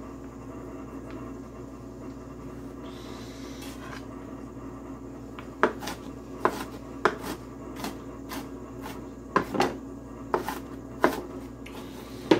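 Knife chopping an onion on a cutting board: sharp, irregular knocks about one to two a second, starting about halfway through, over a steady low hum.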